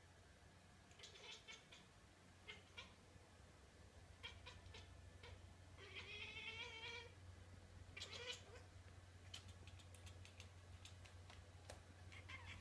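Siamese cat chattering at birds through a window: a few short chirping calls, the longest about six seconds in, with quick clicks in between. This is the bird-mimicking chatter of a cat watching prey it cannot reach.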